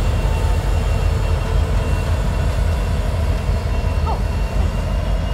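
BNSF diesel-electric freight locomotives running as the train rolls slowly past, a steady low engine rumble with faint steady whines over it. A brief rising squeak about four seconds in.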